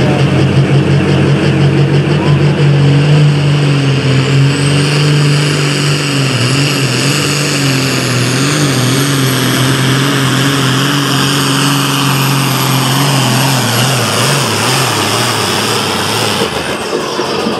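Turbocharged diesel engine of a John Deere hot farm pulling tractor at full throttle under load while dragging a sled, with a steady high turbo whine over the engine note. The engine note wavers and breaks up about 14 seconds in, and the whine cuts off suddenly near the end as the throttle comes off at the end of the pull.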